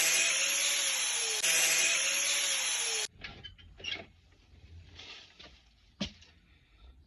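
A power tool runs with a steady, hissing noise for about three seconds, with a short break partway, and then stops. Quieter scraping and a few sharp clicks follow.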